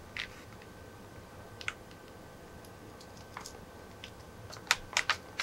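Clear plastic blister tray being handled and turned, giving a few scattered faint clicks and crackles, then a quick run of louder clicks near the end.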